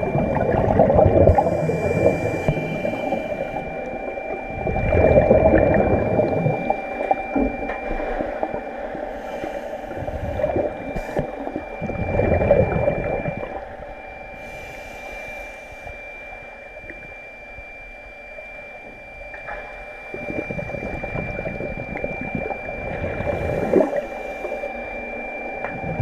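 Scuba regulator breathing heard underwater: each breath is drawn in with a short hiss and let out as a burst of rumbling exhaust bubbles, repeating every several seconds. A steady high hum runs underneath.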